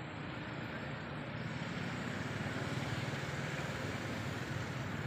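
Steady rumbling outdoor background noise with a hiss, growing louder about a second and a half in.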